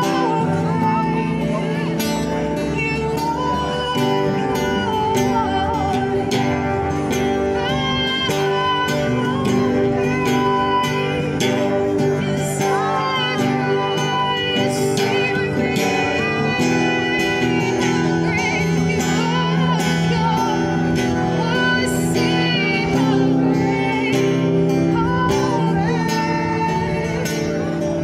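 A woman singing a worship song while strumming an acoustic guitar, amplified through a small portable speaker.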